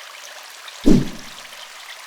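A single short whoosh transition sound effect about a second in: a quick swipe that is loudest low down and fades with a brief falling tail. A steady faint hiss runs under it.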